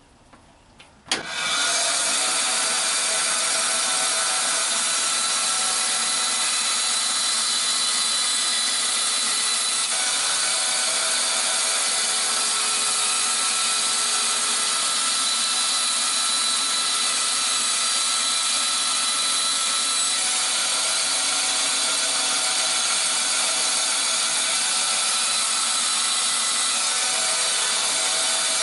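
Power saw starting about a second in and running steadily as it cuts into plywood.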